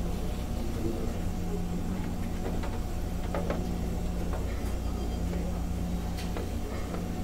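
Steady low drone of a car ferry's machinery heard inside the ship, with a few faint clinks of crockery.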